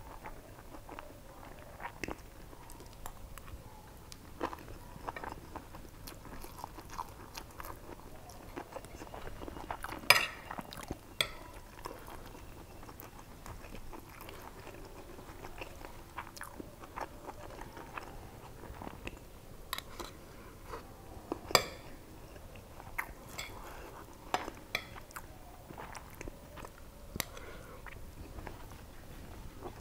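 Close-up eating sounds: chewing and biting a mouthful of mutton biryani, with a metal spoon and fork clinking and scraping on a plate. Two sharp clinks stand out, about ten seconds in and again about twenty-one seconds in.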